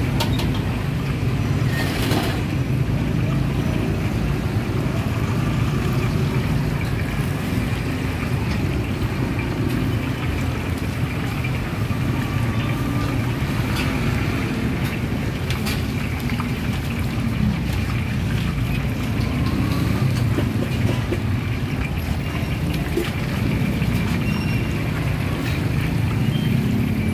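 Hot oil bubbling and sizzling as battered food deep-fries in a large steel wok, over a steady low rumble, with a few short clicks of metal tongs.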